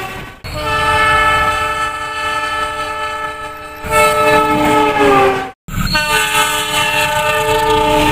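Train horn sounding long blasts, several tones at once as a chord. The sound cuts off abruptly twice, shortly after the start and again a little past halfway, and the pitch falls near the end of the second blast.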